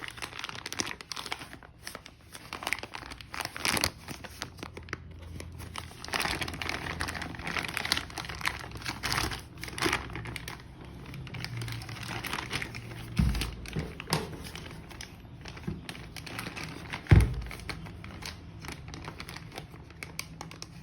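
Plastic and cardboard packaging of car parts crinkling and rustling as it is handled and opened, with two thumps about 13 and 17 seconds in, the second the loudest.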